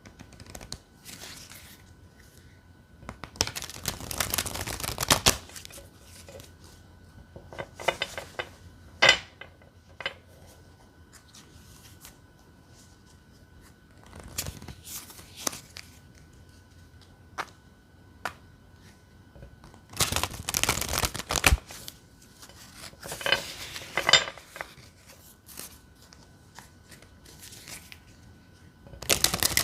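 A deck of tarot cards being shuffled by hand, in about six bursts of a second or two each with short pauses between them.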